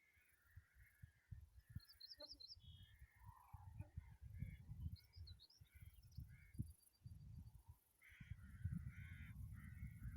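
Wind gusting on the microphone in uneven low rumbles, with birds calling: harsh caw-like calls and a few quick high chirps about two and five seconds in.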